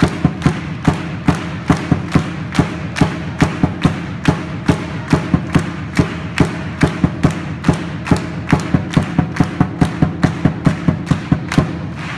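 Lion dance percussion: a Chinese lion drum with cymbals and gong beating a fast, steady rhythm of about three to four strikes a second.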